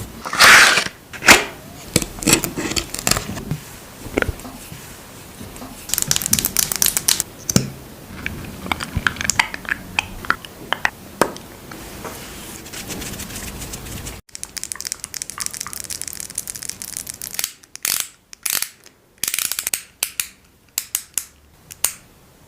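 Makeup products being handled: sharp taps and clicks of cases and containers with crackly rustling. There is a dense run of rapid crackly clicks several seconds in, and separate sharp clicks near the end.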